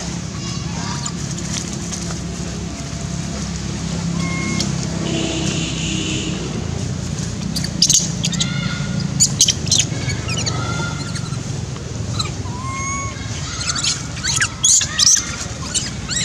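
Outdoor ambience: a steady low hum under short, high chirping calls, with clusters of sharp high-pitched sounds about eight seconds in and again near the end.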